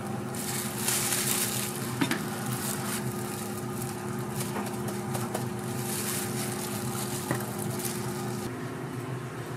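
Food sizzling on a hot griddle, the hiss swelling and easing in waves, with a few sharp clicks of utensils and a steady low hum underneath; the sizzle stops near the end.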